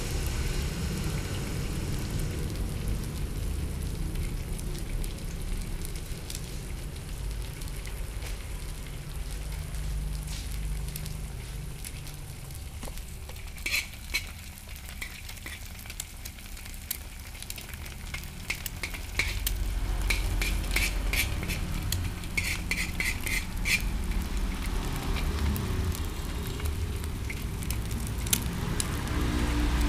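Egg and chopped onion frying in a large aluminium wok, a light sizzle over a low steady rumble. In the second half a metal spoon clicks and taps against the wok in quick runs.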